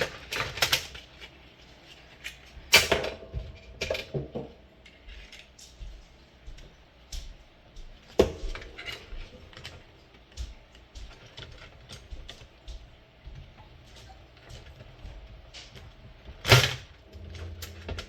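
Clicks, knocks and clatter of the plastic parts of a Timex alarm clock being pried and pulled apart by hand, with three louder sharp knocks about three seconds in, about eight seconds in and near the end, some leaving a brief ring.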